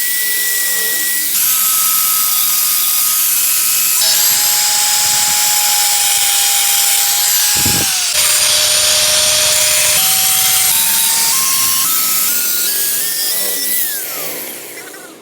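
An electric power tool runs with a loud, high whine that jumps between different pitches and then steps upward. Near the end the whine slides down as the tool winds down.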